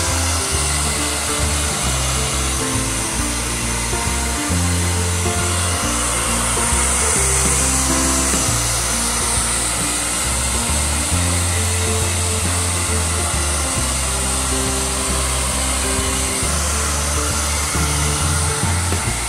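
Handheld hair dryer running steadily, blow-drying a wet dog's coat, over background music with a moving bass line.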